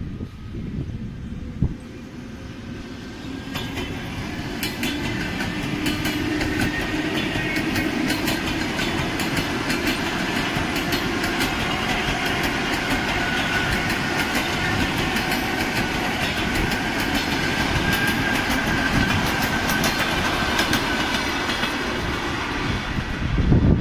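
EP2D electric multiple unit passing at speed, its wheels clicking rapidly over the rail joints, with a steady whine over the rumble. The sound builds over the first few seconds, then holds loud.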